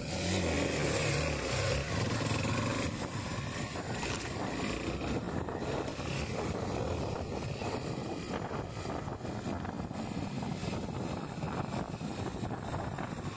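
Honda XR250 Tornado's single-cylinder four-stroke engine running as the bike rides along a rough dirt track, louder for the first two seconds, with short knocks scattered through it.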